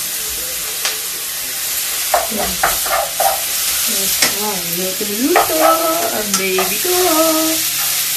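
Onions and mushrooms sizzling in a frying pan as they are stirred, with a few sharp taps of the utensil against the pan in the first few seconds.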